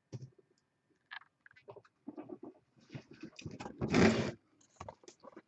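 Scattered soft clicks and knocks, then a louder scraping rustle about four seconds in: desk and handling noise.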